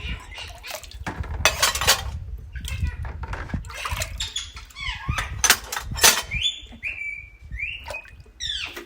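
Pet rose-ringed parakeet (Indian green parrot) giving short, sharp squawks, several in the second half, over water splashing and dishes and cutlery clattering as they are washed.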